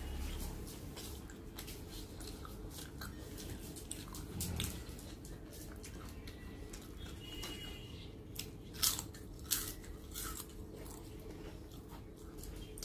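Close eating sounds: a person chewing, with wet mouth clicks and crackles, and a few sharp crunches of crisp papad about nine seconds in.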